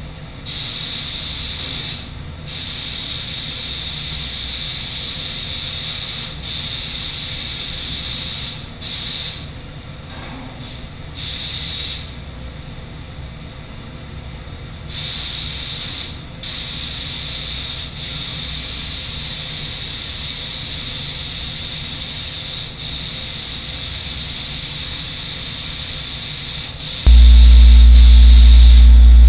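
Air-powered paint spray gun hissing as it lays polyester primer on truck fenders, in passes of a few seconds each that stop and start with the trigger. Near the end a loud, steady low machine hum starts suddenly.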